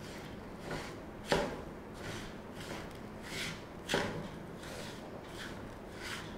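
Wooden spatula stirring and scraping a crumbly mawa and sugar mixture in a non-stick frying pan, a soft stroke about every half second, with two sharper knocks, about a second in and about four seconds in.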